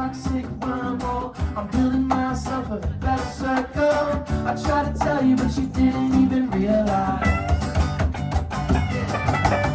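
Live band playing an upbeat song, guitar to the fore over bass and a steady drum beat.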